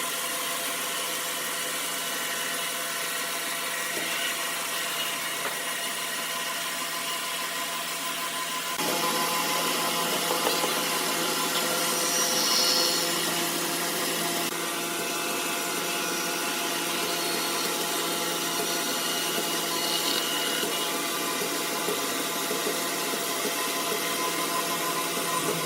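Sawmill machinery running: a steady hum and hiss with several constant tones. The sound changes abruptly and gets louder about nine seconds in, swelling briefly a few seconds later.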